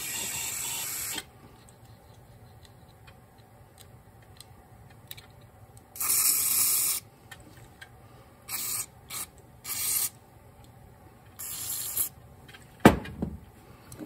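Hissing bursts of spray cleaning out the inside of a Honda GL1500 carburetor body: one at the start, a longer one about six seconds in, then four shorter ones close together. A single thump near the end is the loudest sound.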